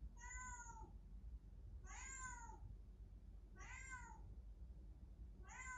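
Recording of a cat meowing, played back: four faint meows, evenly spaced about two seconds apart.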